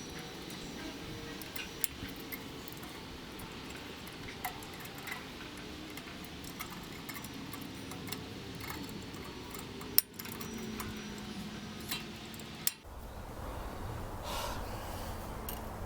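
Light clicks and clinks of small metal parts and tools being handled over a low steady hum, with one sharp click about ten seconds in.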